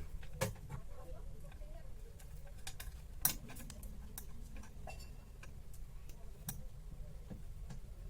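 Irregular small clicks and taps, as of tools and small parts being handled during an earphone repair. The sharpest clicks come about half a second in and just after three seconds, over a steady low hum.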